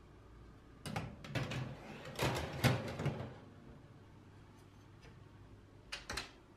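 Baking tray scraping and clattering as it slides along the rails into an oven, then the Siemens oven door shutting with two quick knocks near the end.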